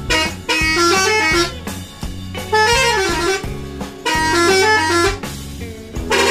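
Telolet bus horn playing its multi-note melody in three loud bursts about a second long each, with a fourth starting near the end, over a steady low hum.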